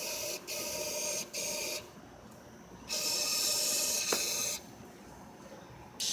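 Aerosol can of throttle body cleaner being sprayed into a turbocharger and exhaust manifold to loosen built-up sludge. It hisses in four bursts: three short ones in quick succession, then a longer one of about a second and a half with a single click in it.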